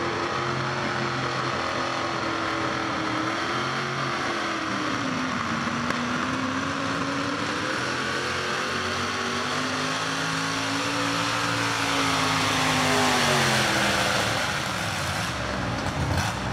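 Mini two-wheel-drive pulling truck's engine run hard under load as it drags a truck-pulling sled, its pitch rising and falling repeatedly through the pull. It is loudest near the end, then winds down steeply as the pull ends, with a few sharp knocks just after.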